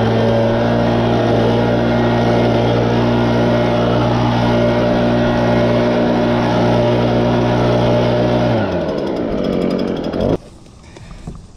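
Gas-powered leaf blower running steadily at high throttle, then throttled down about eight and a half seconds in, its engine note falling before the sound cuts off suddenly near the end.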